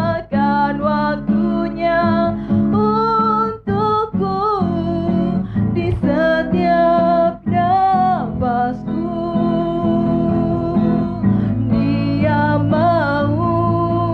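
A woman singing an Indonesian worship song into a microphone, accompanied by an acoustic guitar, with short breaths between the sung phrases.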